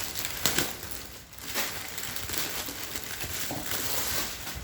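Packaging rustling and crinkling as items are handled and pulled out of a box, with several sharp crackles.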